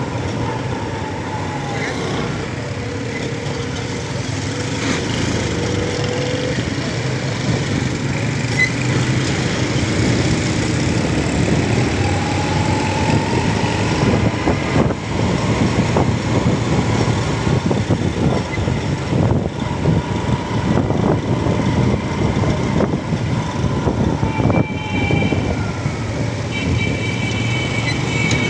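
Riding a small motorcycle in city traffic: its engine runs steadily under road and wind noise, with other engines, including an auto-rickshaw's, around it. A few high steady tones come in near the end.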